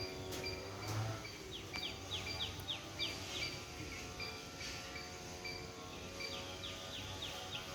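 Birds calling: two quick runs of short, high, downward-sliding notes, about four a second, over regularly repeated short high chirps and a steady low background hum.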